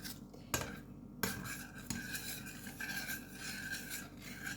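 A teaspoon stirring baking soda into hot milk in a pan, metal scraping round the pan with several sharp clinks in the first two seconds.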